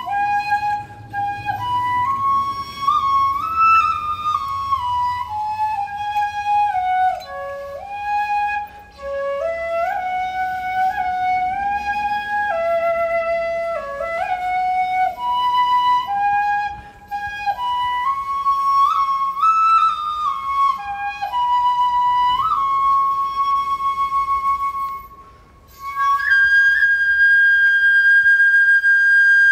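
Shinobue, a Japanese bamboo flute, playing a slow solo melody that steps up and down in held notes, with short breaks between phrases. Near the end it settles on one long held high note.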